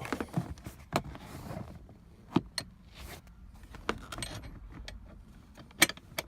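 Irregular metallic clinks and knocks as a new seat belt buckle and hand tools are handled and fitted into a car seat, with a few sharp louder knocks.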